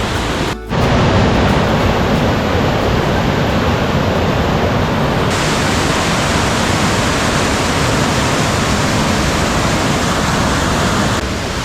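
Loud, steady rushing of fast-flowing water, broken by a short gap about half a second in.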